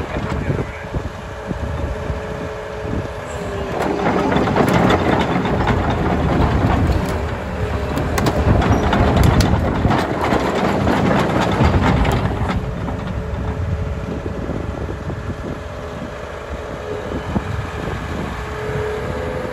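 Volvo EC380EL excavator's diesel engine running, with a low steady rumble that swells into a louder, rougher stretch from about four seconds in until about twelve seconds.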